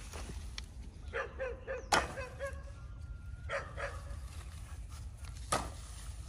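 A run of short animal calls, several in quick succession about a second in, with two sharp knocks, one about two seconds in and one about five and a half seconds in.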